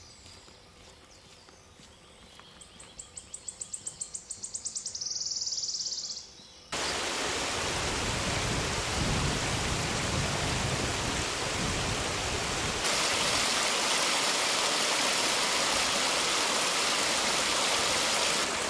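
A small songbird sings a fast trill of rapid high notes that run together into a buzz. Then a shallow, rocky woodland stream rushes steadily over stones, getting louder partway through where it spills down a small cascade.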